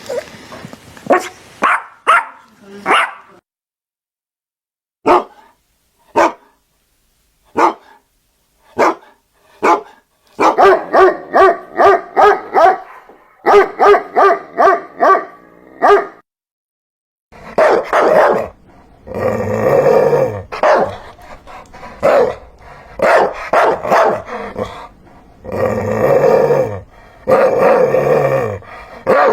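Dogs barking. Sharp single barks come about a second apart, then a quick run of higher barks, and after a short silence deeper, longer barks that drop in pitch.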